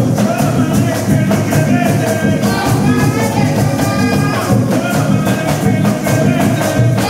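Music with a quick, steady beat and a melodic line over it.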